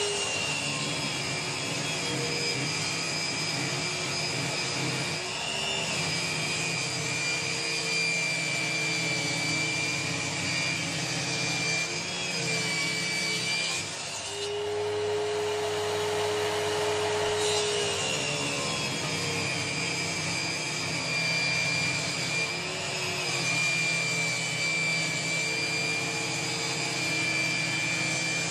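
Table saw running steadily while ripping a thin strip of wood fed along the fence, its whine dipping briefly a few times as the blade takes the load.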